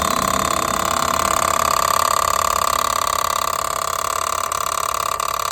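Mahindra XUV700 engine bay rattling: a fast, continuous mechanical rattle with a steady high whine running through it. The service centre traced it to a failed water pump.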